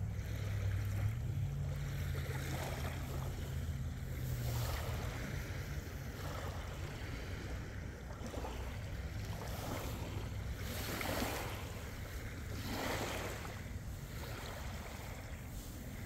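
Lake water waves washing and lapping against the shore, swelling and falling back several times, loudest about eleven and thirteen seconds in. A low rumble sits underneath, heaviest in the first few seconds.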